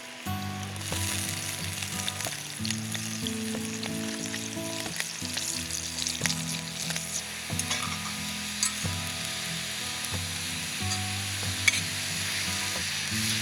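Steady sizzling and crackling with scattered sharp pops, under instrumental background music of held low notes.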